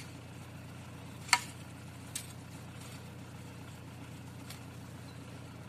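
A spade working in the soil around a hogweed root: a few short, sharp clicks and scrapes of the blade, the loudest about a second and a half in, over a steady low hum.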